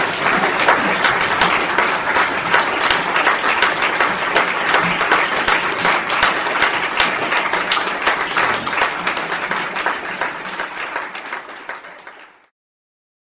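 Audience applauding, many hands clapping at once; the applause fades over the last few seconds and then cuts off to silence.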